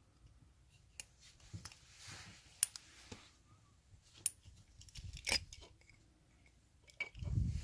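Small plastic automotive wiring connectors and terminals being handled: a handful of faint, separate clicks and ticks, with a low handling rumble near the end.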